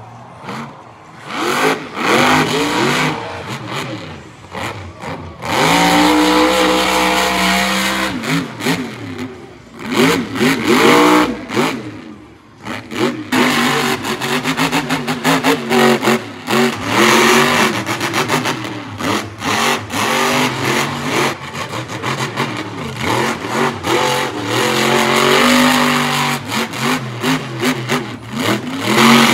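Monster truck engines revving hard, the pitch climbing and falling again and again as the throttle is worked, in short stretches broken by sudden cuts.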